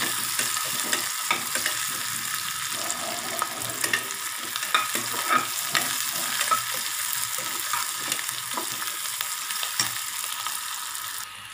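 Sliced shallots sizzling in hot oil in a pressure cooker, stirred with a slotted metal spoon that scrapes and clicks against the pot; the onions are well sautéed. The sizzle drops off sharply near the end.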